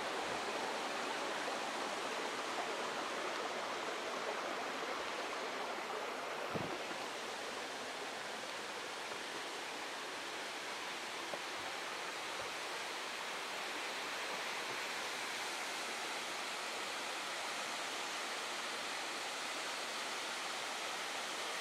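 A waterfall and the rocky stream below it, rushing steadily.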